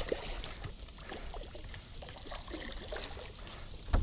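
Hooked largemouth bass splashing and thrashing in the water at the side of a boat, with water trickling and small knocks. There is one sharp knock near the end.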